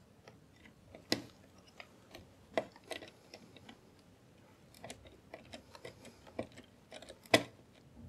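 Small precision screwdriver turning the tiny retaining screw of an M.2 SSD into its motherboard standoff: faint, irregular metallic clicks and ticks, with a sharper click about a second in and another near the end.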